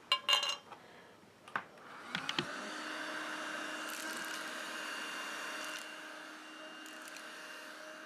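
A few light clicks of tools being handled, then a handheld vacuum cleaner switches on about two seconds in and runs with a steady hum, sucking saw filings off the tabletop. Its level drops a little about six seconds in.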